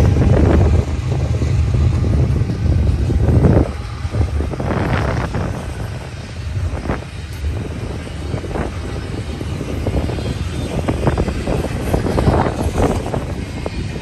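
Double-stack container train rolling past: a loud low rumble, from the locomotive that has just gone by, drops away about four seconds in. After that the wheels of the container well cars rumble over the rails, with irregular clunks and rattles.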